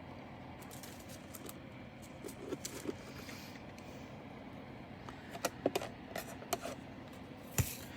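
Scattered light clicks and rattles of small plastic bags and containers of resin diamond-painting drills being handled. The clicks come thicker in the second half, with one sharp tap near the end, over a steady low hum.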